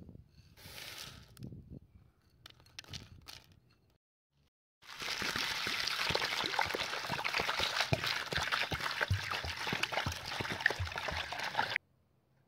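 Water pouring into a plastic basin of yellow split peas and green lentils, splashing steadily onto the pulses for about seven seconds and then stopping abruptly. Before it there are a few brief, quieter sounds.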